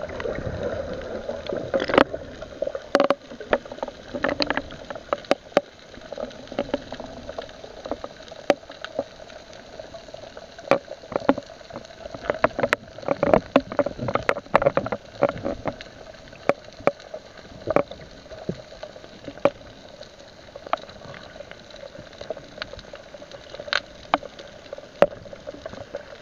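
Underwater sound: bubbling and water movement with many irregular sharp clicks and knocks over a steady hum.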